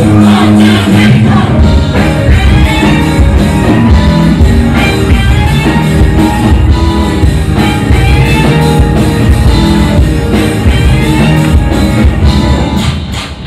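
Loud up-tempo pop-rock song with a group singing over a band with drums and guitar and a steady beat. The music drops in level near the end, leaving sharp, evenly spaced beats.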